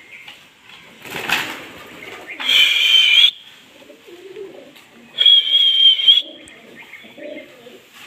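Indian ringneck parakeet calling: a short harsh squawk about a second in, then two loud, steady high calls of about a second each, with quieter low chatter between them.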